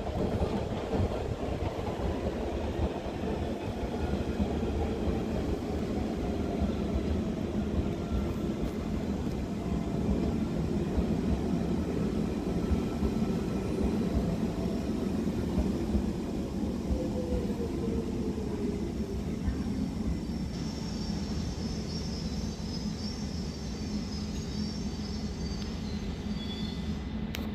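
London Underground Central line 1992 stock train running at the platform with a steady low rumble. Its motor whine falls slowly in pitch as the train slows, and a faint high squeal comes in near the end.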